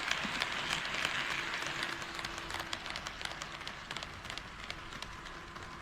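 HO scale model train running on the track, its wheels clicking rapidly over the rail joints, getting gradually quieter as it moves away, with a faint steady hum.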